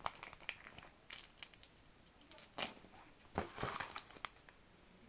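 Paper stickers rustling and crinkling as they are handled, with scattered light clicks and knocks; the loudest rustles come about two and a half and three and a half seconds in.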